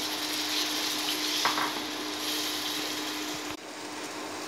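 Curry gravy sizzling in a non-stick kadhai as a marinade-and-water mix is stirred into hot fried masala with a spatula, a steady hiss over a constant hum. The hiss drops off abruptly about three and a half seconds in.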